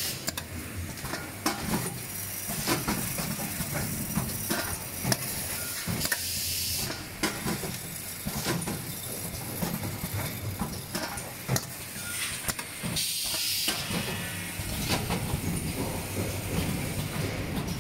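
Automatic zipper-pouch seed counting and packing machine running: a steady low hum with many sharp clicks, and short bursts of compressed-air hiss from its pneumatic actuators, about six seconds in and again around thirteen seconds.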